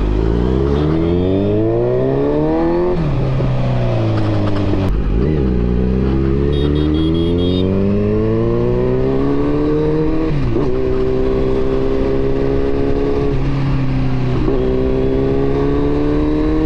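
Kawasaki Z900's inline-four engine accelerating up through the gears. Its pitch climbs, then drops sharply at each of four upshifts, about three, five, ten and fourteen seconds in.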